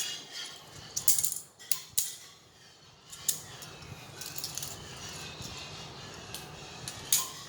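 Plastic magnetic building tiles clacking against each other as they are handled and snapped together: several sharp clicks in the first two seconds and another near the end, with quieter steady rustling in between.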